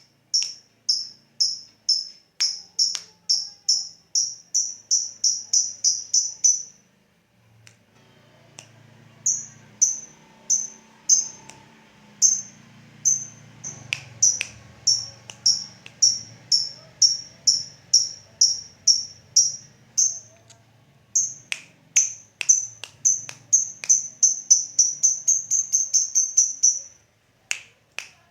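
Lovebird 'ngetik' calls: sharp, high chips repeated about two a second, speeding up into quick runs that stop abruptly, with a pause of a couple of seconds twice. This ticking call is used to provoke lovebirds into their long chattering 'ngekek' song.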